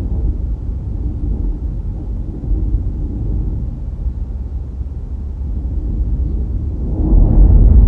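Low, steady rumble of a car driving, road and wind noise on the microphone, swelling louder about seven seconds in.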